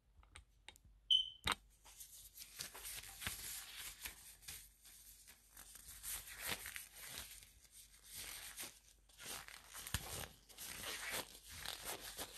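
Faint, irregular rustling and scraping of something being handled, with a short high beep about a second in.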